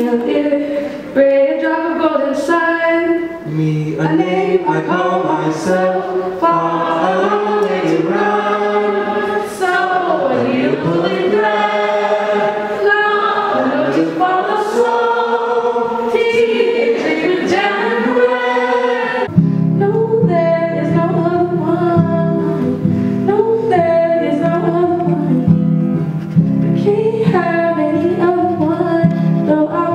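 A woman singing live into a microphone, holding long notes and sliding between them. About two-thirds of the way through, a fuller, steady low accompaniment comes in under her voice.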